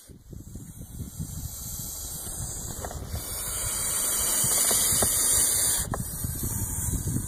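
Agitated gopher snake hissing defensively: one long hiss that swells about three seconds in and stops sharply near six seconds. A low rumble of wind or handling noise on the microphone runs underneath.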